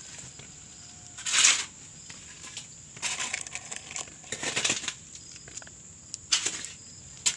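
Short bursts of rustling, about five in all, from handling close to the microphone, over a faint steady high hiss.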